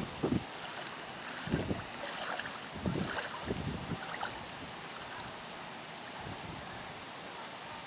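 Wind blowing over a lake, gusting against the microphone several times in the first four seconds over a steady rushing noise.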